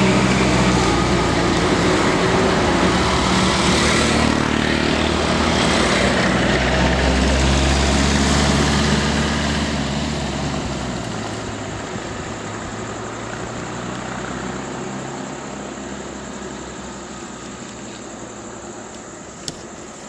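Road vehicle engines running close by, several at once, loud for about the first half and then fading away as the traffic moves off.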